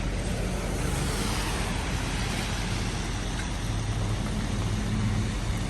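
Rain and traffic on a wet city street: a steady hiss of rain and tyres on wet pavement, with a low vehicle engine hum that grows stronger about halfway through.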